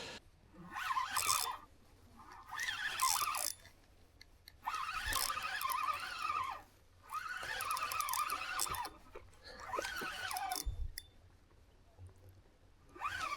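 Fishing reel whirring in five bursts of one to two seconds, with short pauses between them, as a hooked rainbow trout is played on the line.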